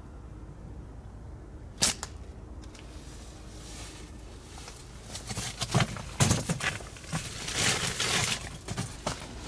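A single sharp snap of a slingshot shot about two seconds in. From about five seconds on, a run of rustling and crunching in dry leaf litter, broken by several thumps.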